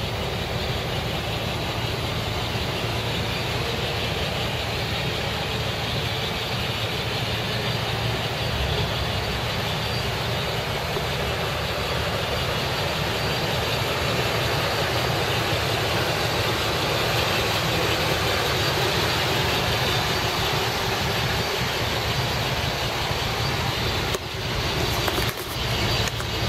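1980s Chevrolet K5 Blazer's engine idling steadily, with a few brief dips in level near the end.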